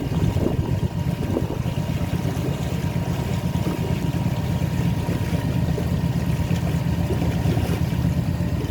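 A river cruise boat's engine runs steadily, heard from on board as a constant low rumble.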